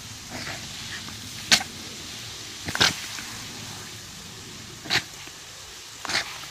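A garden hose spray nozzle hissing steadily while a small terrier lunges and snaps at the jet, giving five short, sharp noises, the loudest about a second and a half in.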